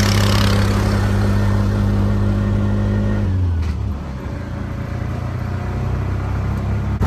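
Motor taxi's small engine running steadily, then dropping in pitch about three and a half seconds in as the throttle eases off, and running on at a lower pitch.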